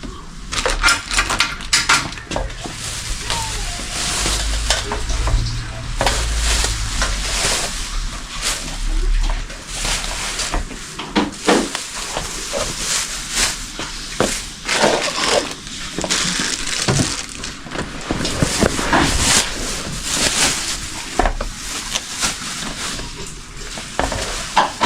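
Plastic wrapping being crinkled and pulled off a new air compressor: a long run of irregular crackles and rustles, with a low rumble of handling in the first few seconds.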